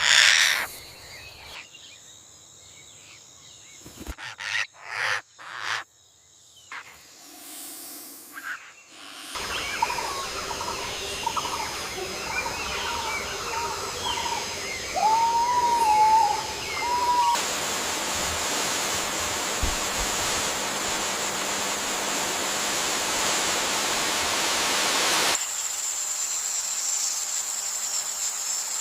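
Nature soundscape in edited segments: a few sharp clicks, then outdoor ambience with scattered bird chirps and one clear whistled call, a stretch of steady hiss, and near the end a steady high-pitched tone.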